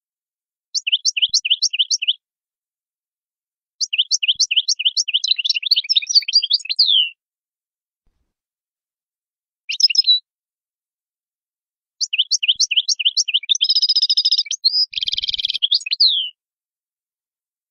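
European goldfinch singing in twittering phrases of rapid, high, repeated sweeping notes run into buzzy trills. There are four phrases separated by short silences: a brief one near the middle, and a long one near the end.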